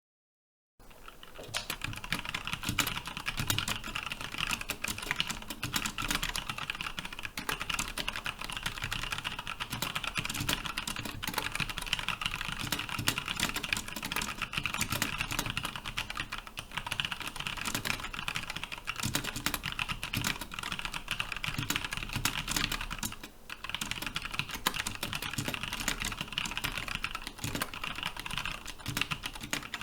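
Fast continuous typing on a GH60 60% mechanical keyboard with Cherry MX Brown switches and PBT keycaps: a dense, unbroken run of keystroke clacks at around 80 words per minute. It starts abruptly about a second in and pauses briefly about three quarters of the way through.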